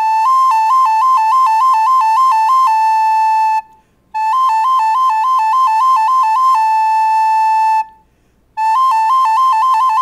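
Recorder played on its A fingering while the first finger flaps up and down, so the note warbles quickly between two close pitches, about two or three swaps a second, to imitate an ambulance siren. It is played three times, each phrase ending on a held A, with short breaths between.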